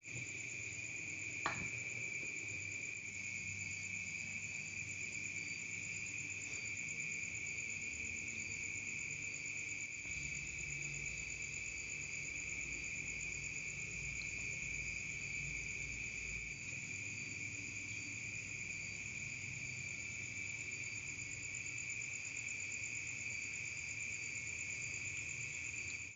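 Crickets chirping in a steady, unbroken shrill chorus, with one sharp knock about a second and a half in.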